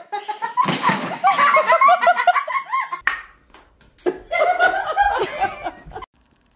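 People laughing hard in two stretches, with a short lull about halfway through that holds a few sharp taps.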